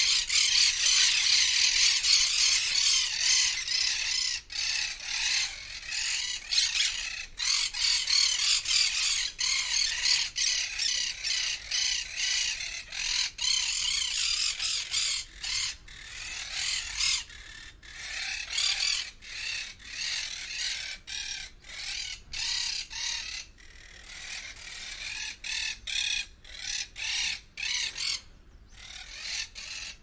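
Dense, high-pitched twittering chatter of many birds calling together, loudest in the first half and breaking up into shorter stretches later on.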